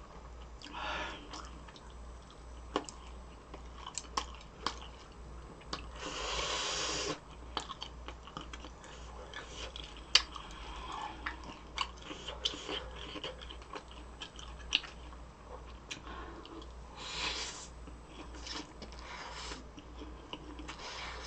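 Close-miked eating sounds: chewing with many sharp wet clicks, and two longer hissy stretches about six and seventeen seconds in, over a steady low hum.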